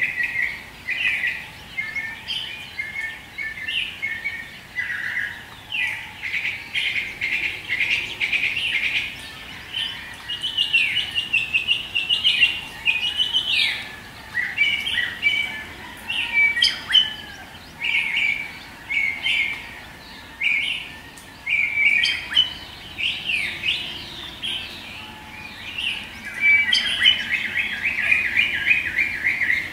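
Dawn chorus of songbirds, many chirps and short songs overlapping without a break, with a fast trill near the end.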